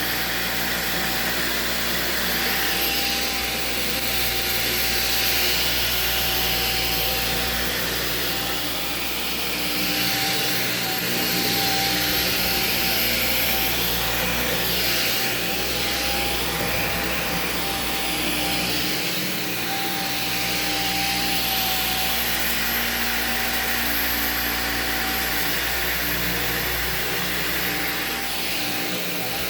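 Dyson Gen5 Detect cordless stick vacuum running steadily, a continuous motor hum and airflow with a thin high-pitched whine whose pitch dips slightly and returns a few times.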